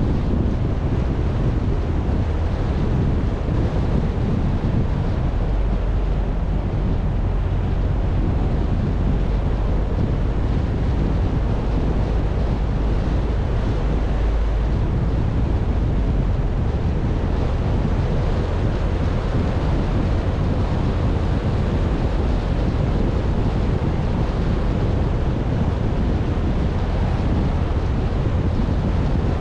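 Steady rushing noise of a car driving along a road, heaviest at the low end: wind blowing over the microphone mixed with road and engine noise.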